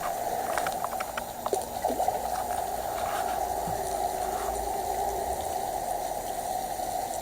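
Steady rush of running, splashing water, with a few faint clicks in the first couple of seconds.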